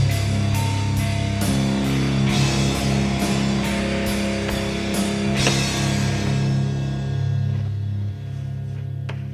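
Rock music with guitar and a steady drum beat of about two hits a second; the drums drop out about halfway through and the music gets quieter near the end.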